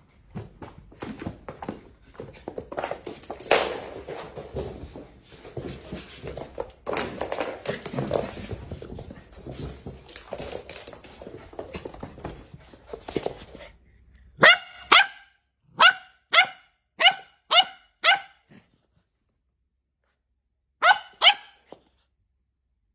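Border collie puppy barking: a quick run of about seven short, sharp barks, about two a second, then a pair more a few seconds later. Before the barking there is a long stretch of scuffling and knocking, the puppy's play on the wooden floor.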